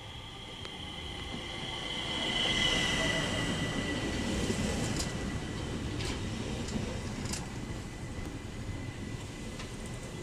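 An ÖBB electric commuter train pulls into a station and slows down. A high whine falls in pitch as it decelerates, and a rumble of wheels on rails builds to its loudest a few seconds in, with a few clacks from the wheels around the middle. A steady high tone remains as it comes nearly to a stop.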